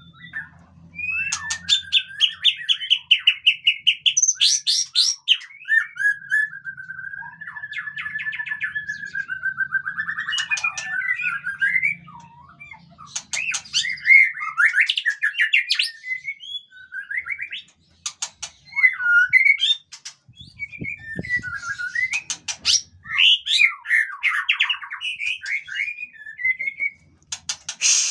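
White-rumped shama (murai batu) singing a long, varied song of clear whistles, rapid trills and rattling notes in quick phrases with short pauses. About six seconds in, it holds one long, even trill for several seconds.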